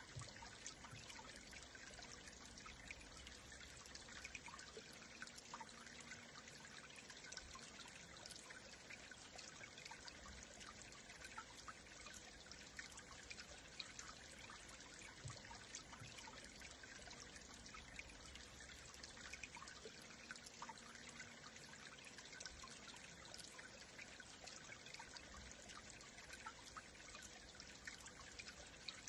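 A stream of water flowing: a faint, steady trickle with many small splashes and drips.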